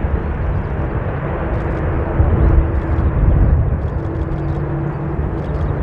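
Airbus A380-841's four Rolls-Royce Trent 900 turbofans as the airliner lands: a loud, steady jet rumble, heaviest in the low end, with a faint steady hum running through it.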